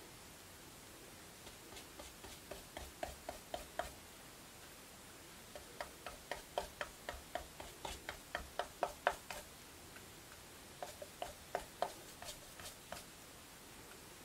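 Paintbrush stroking and blending acrylic paint on a wooden board, a short dry tick with each quick stroke. The strokes come in three runs of about three to four a second.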